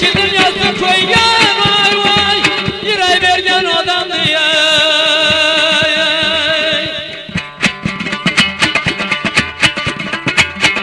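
Afghan folk music on dambura and rubab: a man sings a long, wavering line over the plucked strings, and about seven seconds in the voice stops and the strings go on alone in a quick strummed rhythm.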